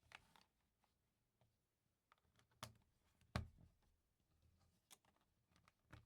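Faint, scattered clicks of plastic LEGO pieces being handled and pressed together, five or six in all, the sharpest about three and a half seconds in.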